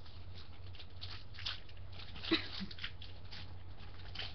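Plastic packaging and toy parts being handled: scattered crinkles and light clicks, with one sharper click about two seconds in, over a steady low hum.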